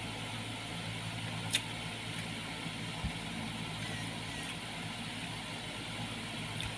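A steady low mechanical hum, like a motor running, over a faint hiss, with a sharp click about a second and a half in and a dull thump about three seconds in.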